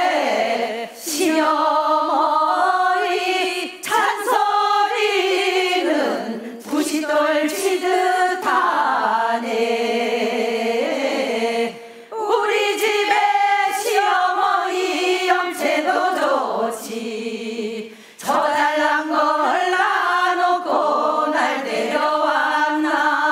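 A chorus of women singing a Gangwon-do folk song (minyo) together, in sung phrases separated by brief pauses.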